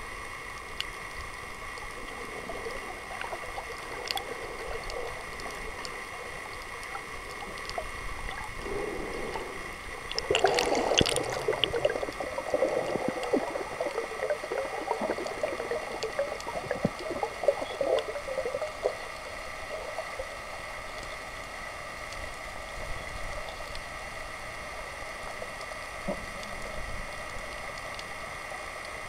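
Underwater water noise picked up by a camera: a steady hiss with faint steady hums, and from about ten seconds in a louder stretch of gurgling water lasting several seconds.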